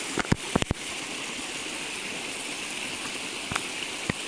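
Steady rush of a running creek, with several sharp clicks and knocks in the first second and two more near the end from the phone being handled.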